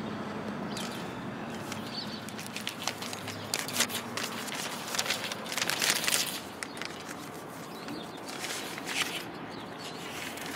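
Paper rustling and crinkling in short crackly bursts as a letter is taken from its envelope and unfolded, over steady outdoor background noise.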